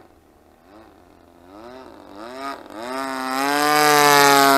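Single-cylinder two-stroke gasoline engine of a Sbach 342 RC aerobatic plane (DLE 20cc, running a chainsaw carburettor) in flight. Its pitch swings up and down a few times with the throttle, then it grows steadily louder as the plane passes low and close, loudest near the end.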